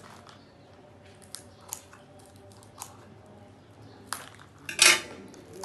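Scissors snipping at a small plastic-wrapped packet: a few separate sharp clicks, then a louder, short crackle of the wrapper being cut open near the end.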